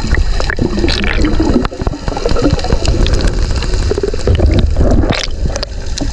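Water gurgling and churning around an underwater camera housing: a heavy low rumble throughout, with many scattered clicks and knocks.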